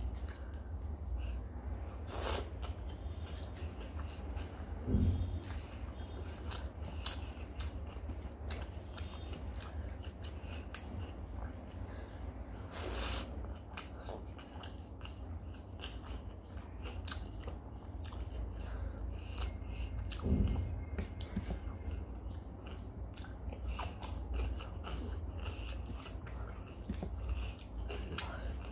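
Close-miked chewing and mouth sounds of a person eating rice and soft potato curry, a dense run of small wet clicks throughout. A few louder short sounds stand out, about 5 and 20 seconds in.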